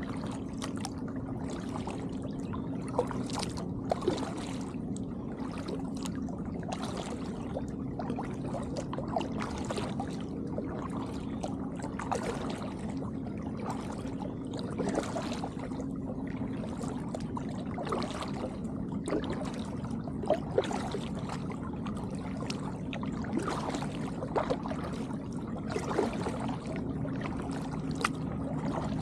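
Kayak paddle strokes: the blades dipping and splashing, with water dripping and trickling off them in small irregular splashes. A steady low hum runs underneath.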